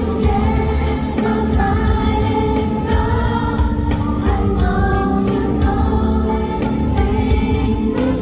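Pop song playing loud through a concert sound system, a sung melody over a heavy, continuous bass.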